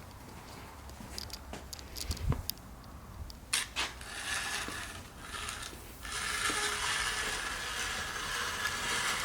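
Scattered metal clicks and a low thump of a wheel being handled and bolted onto the car, followed by a steady hiss from about six seconds in.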